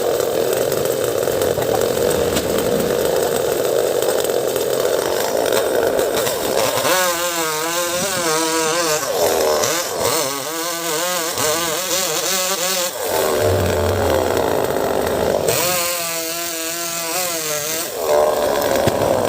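Chainsaw running hard, steady at first, then its engine note warbling rapidly up and down in three stretches.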